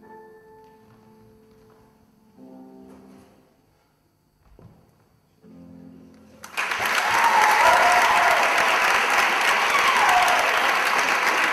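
Soft music of a few held notes with pauses between them, then about six and a half seconds in, loud audience applause breaks out and carries on.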